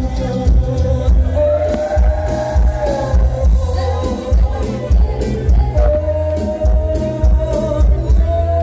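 Loud Thai dance music blaring from a parade sound truck's speaker stacks, with a heavy, pounding bass beat and a singing voice over it.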